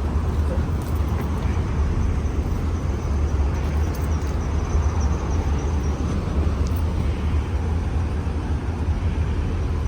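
Wind buffeting the microphone outdoors: a steady low rumble over an even hiss.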